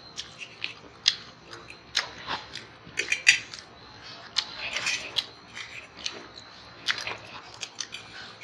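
Forks clicking and scraping on stainless steel plates at irregular intervals, with chewing and noodle slurping.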